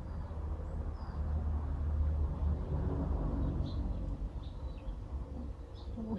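Outdoor ambience: a low rumble that swells about two seconds in and then fades, with short high bird chirps scattered throughout.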